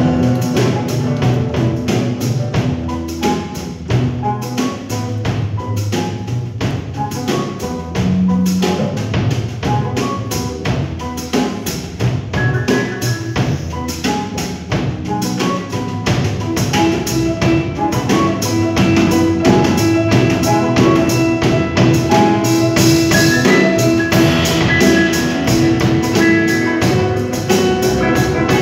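Live band playing an instrumental passage: a drum kit keeping a steady beat, a plucked upright bass and keyboards. A grand piano comes in partway through.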